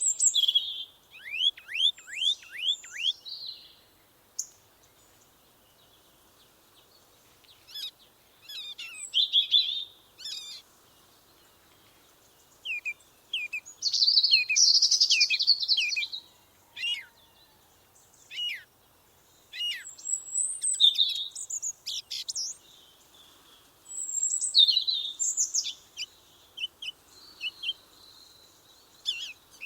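Songbirds singing: phrases of quick, high chirps and downward-sweeping whistled notes, broken by short pauses and a longer quiet stretch a few seconds in.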